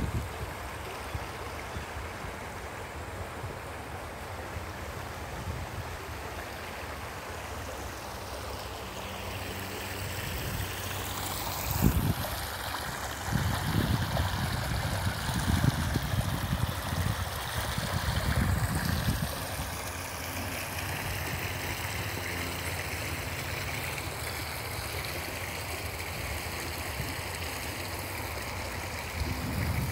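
Shallow woodland stream running over a rocky bed, a steady trickling hiss of water. About twelve seconds in, irregular low rumbling bumps hit the microphone for several seconds, then stop.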